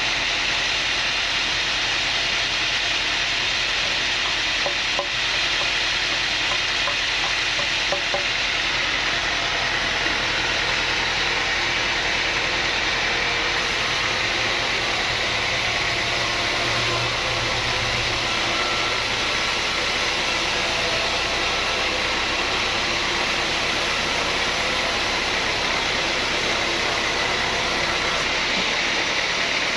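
Sawmill machinery running steadily, a continuous dense mechanical noise with a hissing edge.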